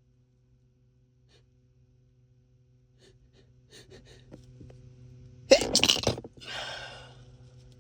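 A man's sneeze: a few catching breaths build up, then one loud, forceful sneeze about five and a half seconds in, followed by a breathy after-sound that fades within a second.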